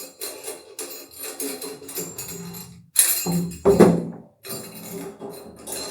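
Metal clinking and rattling as the aluminium grid antenna and its mounting bracket are turned and handled: a run of irregular jangling clatters, louder about three seconds in.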